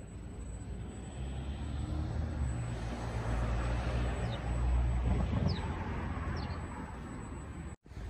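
Street traffic: a steady low vehicle rumble and road noise that swell to their loudest about four to five seconds in, with a few short high chirps, likely birds. The sound cuts off abruptly just before the end.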